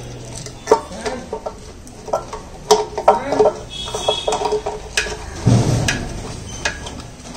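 Small clicks, taps and scraping as a motorcycle fuel-level sensor unit and its wire are handled and set over the sensor opening of the fuel tank, with a short burst of rustling noise a little past halfway.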